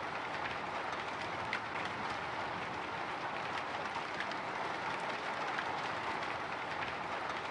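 Light drizzle pattering steadily on a window pane, a soft even hiss with scattered single drop ticks.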